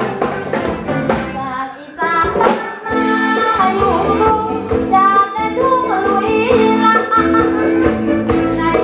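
A woman singing a Thai song into a microphone over band accompaniment; the music fills out and gets louder about two seconds in.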